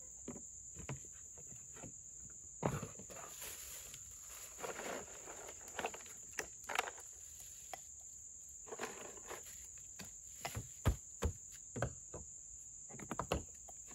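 Steady high-pitched insect chorus, with scattered clicks, knocks and rustles of camp cookware, cans and a cooler lid being handled.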